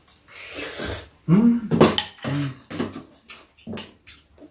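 Metal spoons and chopsticks clicking against bowls and a metal tray as two people eat, with a stretch of mouth noise at the start and a few short hummed, pitched vocal sounds about a second and a half in.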